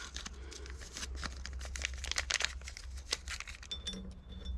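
Small parts being handled: irregular rustling, crinkling and light clicks, as from sorting the trunnion kit's washers and bearings out of their packaging, over a steady low hum.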